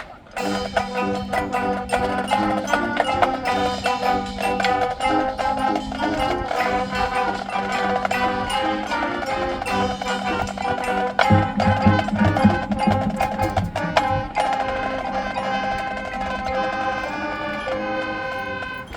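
Marching band playing its show music, with mallet percussion and drums prominent over the winds. The music starts sharply, and deep low notes join about eleven seconds in for a few seconds.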